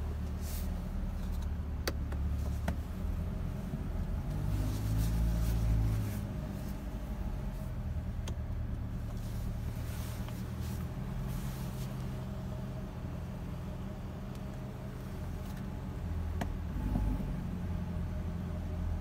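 Corvette C8's V8 engine idling, heard from inside the cabin: a low, steady rumble that swells briefly about five seconds in and again near the end. A few light clicks are heard over it.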